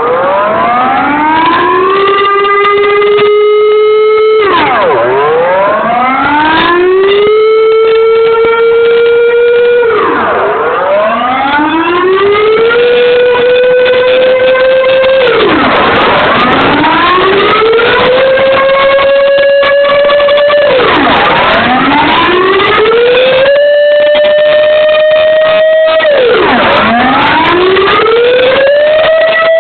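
Dutch civil-defence air-raid siren on a pole sounding the rising-and-falling alarm signal during a siren test. Its pitch climbs, levels off, then drops sharply, repeating about every five seconds.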